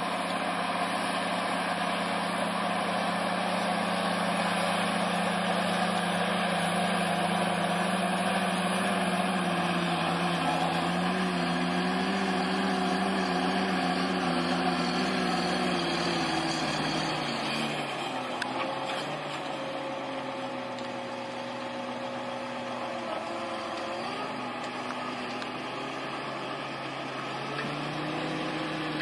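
John Deere 8330R tractor's six-cylinder diesel engine running while it pulls a tillage implement. The engine note drops in pitch and quietens about two-thirds of the way through, then rises again near the end.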